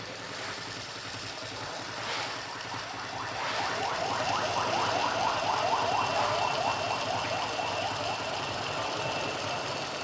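Small rebuilt four-stroke motorcycle engine idling quietly on a stand. From a few seconds in, a rapid repeating chirp, about four or five a second like an alarm, rises over it and fades out near the end.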